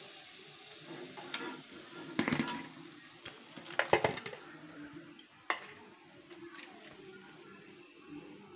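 A perforated steel skimmer clinking and scraping against a steel plate as fried dough balls are tipped onto it. The loudest clinks come about two and four seconds in, with a faint sizzle of hot oil underneath.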